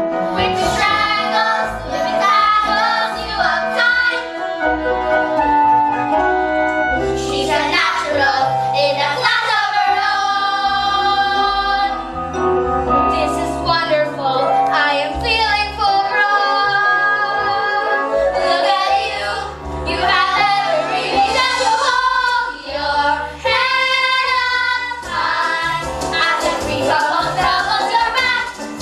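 Young female voices singing a musical-theatre song over a recorded instrumental backing track, the sung lines held and gliding with only short breaks.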